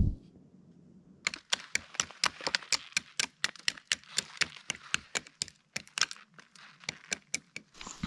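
Knife blade chipping and prying a chaga conk off a birch trunk: a quick, irregular run of sharp cracks and knocks, about four or five a second, starting about a second in.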